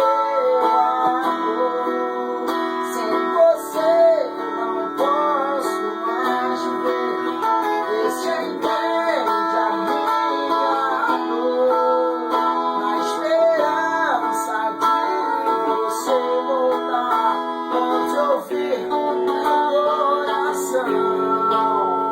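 Music led by guitar playing chords under a melody line, with a chord change near the end.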